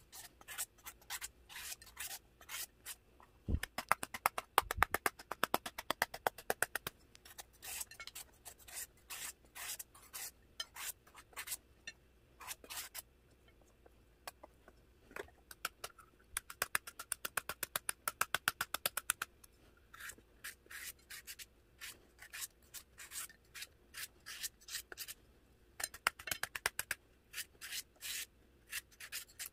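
Green papaya being shredded by hand: quick scraping strokes, several a second, in runs of a few seconds with sparser strokes between. There are two low knocks about four seconds in.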